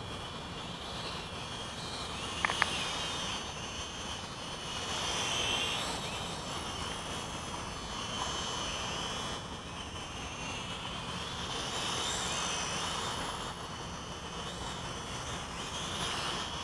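Small toy quadcopter's motors and propellers whining overhead, the pitch wavering up and down and the sound swelling and fading as the throttle changes. Two sharp clicks come about two and a half seconds in.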